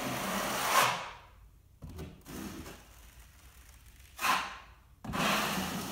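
A 12-inch steel taping knife scraping joint compound across a textured wall in sweeping strokes, each growing louder toward its end. One stroke ends about a second in, a short one comes a little after four seconds, and another begins near the end, with quiet pauses between.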